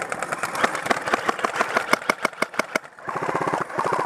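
Airsoft guns firing rapid full-auto strings of shots as covering fire, each shot a sharp crack; the shots come faster and closer together from about three seconds in.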